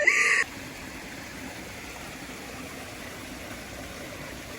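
A brief loud sound right at the start, then steady rushing water with no pitch and no rhythm.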